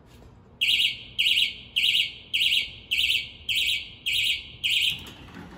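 Garage door operator's warning beeper sounding eight high-pitched warbling beeps, about two a second, the pre-warning that the door is about to close automatically.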